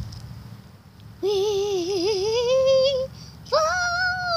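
A high voice making two long, wavering wordless calls, the second swooping up at its start and sliding down at its end.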